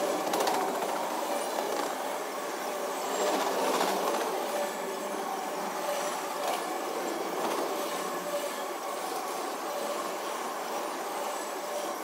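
Empty intermodal well cars of a freight train rolling past close by: a steady sound of wheels on rail with a thin wheel squeal and a few clunks from the cars.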